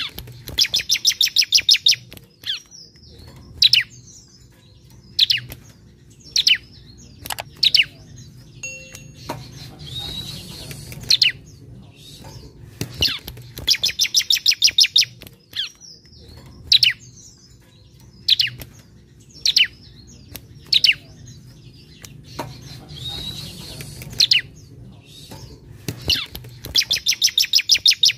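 Bar-winged prinia (ciblek) singing: a fast rattling trill of about a dozen high notes, then a string of loud, sharp single chirps. The phrase repeats about every 13 seconds.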